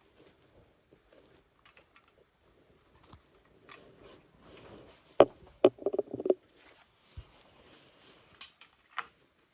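Automotive wiring-harness connectors and wires being handled: scattered light clicks and rustling, with a cluster of sharp plastic clicks and rattles about five to six seconds in.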